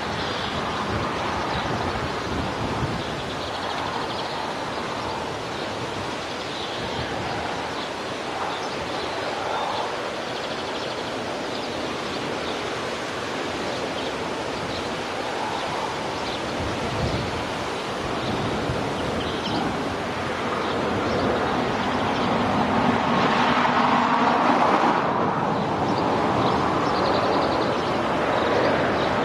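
Wind rushing across the microphone, a steady noisy hiss that grows somewhat louder in the last third.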